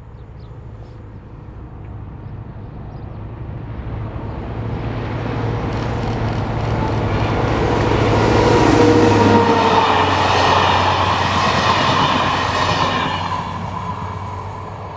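SNCF BB 67400 diesel locomotive hauling passenger coaches passes at speed. Its low engine hum grows louder as it approaches and drops in pitch as it goes by about nine seconds in, then the coaches' wheels clatter past and the sound fades.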